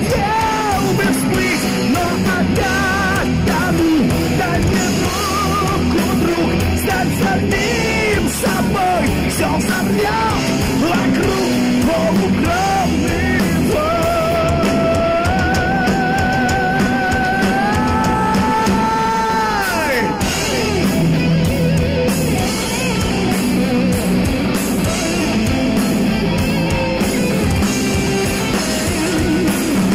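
Live heavy metal band playing: distorted electric guitars, bass guitar and drum kit, with the singer yelling and singing over them. From about fourteen seconds in a lead line holds wavering notes, ending in a long note that slides down about twenty seconds in.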